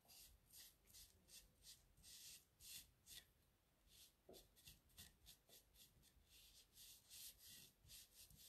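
Faint, repeated swishes of a sponge brush stroking water-based paint along the smooth edge of a sign board, about two strokes a second, unevenly spaced.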